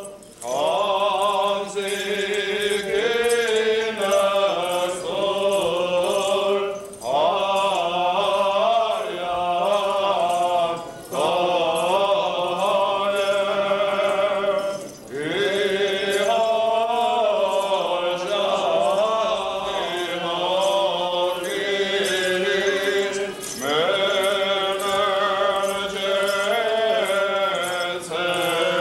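Armenian church chant: a voice sings a richly ornamented melody over a steady held drone note, in phrases of a few seconds, each beginning with a rising glide and separated by brief pauses.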